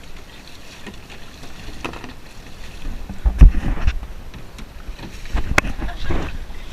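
Canoe on the water: paddle splashes and a few sudden knocks, the loudest about halfway through and two more near the end.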